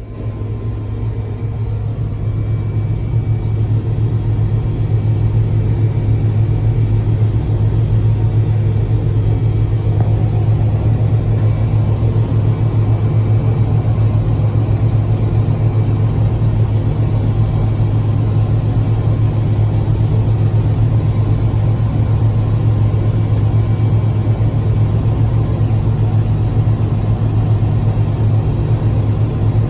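Amadas 9960 self-propelled peanut combine running steadily under harvesting load, a constant low drone that builds up over the first couple of seconds and then holds level.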